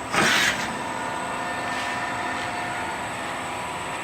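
CNC plasma cutting table running with a steady machine hum and several steady tones, broken just after the start by a loud hiss lasting about half a second.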